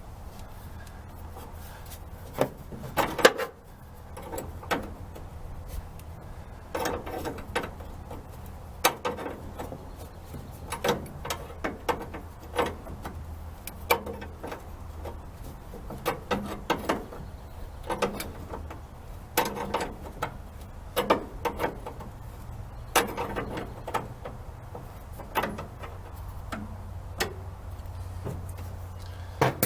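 Wrenches working the brake line fitting loose on a master cylinder: irregular metal clicks and knocks of the tools on the fitting, over a steady low hum.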